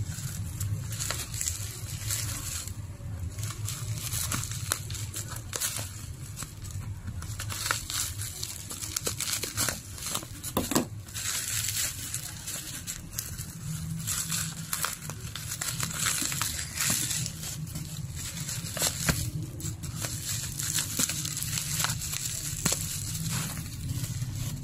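Plastic bubble wrap being crinkled and pulled off a small boxed item, with irregular crackles and rustling throughout. A steady low hum runs underneath.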